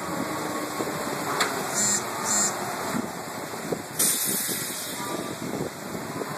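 Outdoor amusement swing ride running, its gondola of riders looping overhead, heard as a steady rushing noise with short hissing bursts twice about two seconds in and again about four seconds in.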